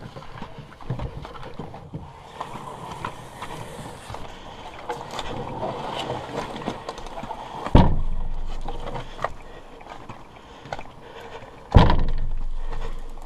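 Footsteps and rustling on a dirt forest trail as a canoe is carried overhead on a portage. Two loud knocks, about 8 and 12 seconds in, each ring on and fade over a second or so.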